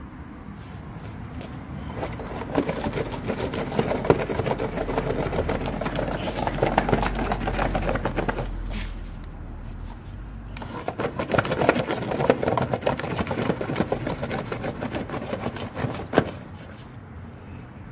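A French bulldog pawing and scratching at a cardboard box, claws rasping and scraping on the cardboard in two long, busy bouts.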